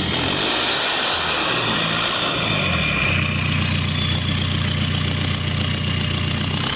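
Toyota Hilux 2KD turbodiesel engine running, its revs rising and falling for about three seconds and then settling to a steady idle, with the turbo's whistle gliding up and down above it. Only the normal turbo whistle is heard: the odd hissing is gone with the turbo-to-catalytic-converter gasket removed, which the owner takes to point at that gasket or a clogged catalytic converter.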